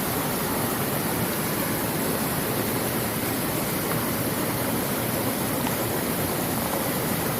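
Mountain stream water rushing, a steady, unbroken rush.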